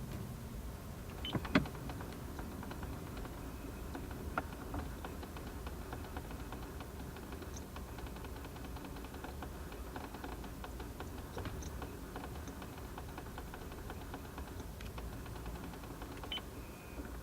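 Faint, irregular ticking from the air-conditioning mode-switching (damper) motor of a 17-series Toyota Crown, heard inside the cabin over a low steady hum, with a sharper click about a second and a half in and another about four seconds in. The ticking is the abnormal noise of a failing A/C switching motor, as the owner understands it.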